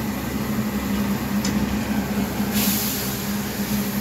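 Steady low electric fan-motor hum, with a short sizzling hiss from masala gravy frying in an iron kadhai about two and a half seconds in.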